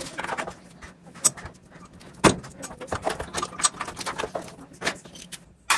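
Plastic clicks and rattles of wire-harness pigtail connectors being unclipped and pulled off a washer's main control board, with one sharper knock about two seconds in.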